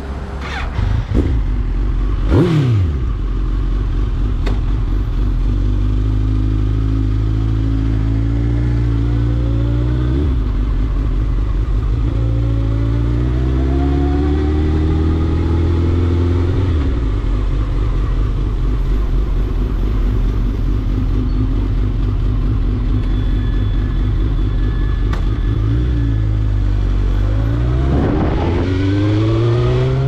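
Suzuki GSX-R1000's inline-four engine under way at moderate revs. Its pitch rises slowly and drops back a couple of times, then climbs steeply near the end as the bike accelerates hard.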